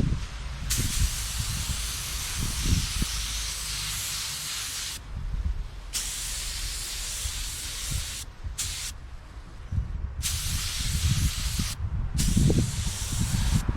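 Automotive paint spray gun spraying a coat onto a car panel: a steady air hiss in about five passes, broken by short pauses where the trigger is released.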